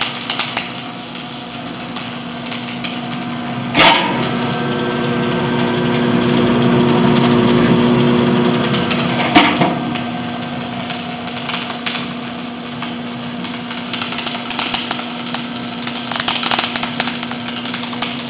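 Century 225-amp wire-feed (MIG) welder in use, its arc crackling steadily over a constant hum, with two sharp knocks about four and nine seconds in.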